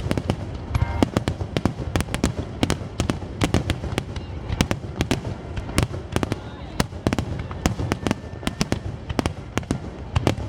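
Fireworks bursting continuously: a rapid, irregular run of sharp bangs and crackles over deep booming.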